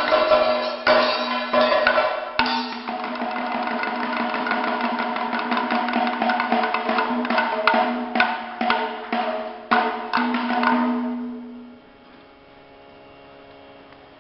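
Kathakali percussion accompaniment: chenda and maddalam drums beating sharp, irregular strokes over a steady ringing tone. It stops near the end, leaving only a faint murmur.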